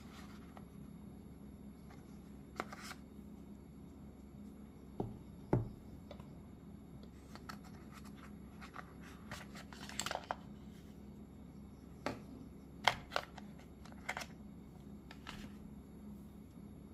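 Cardboard box tray and the paper-wrapped earbud charging case being handled: scattered light taps, scrapes and rustles, about a dozen spread out, over a faint steady low hum.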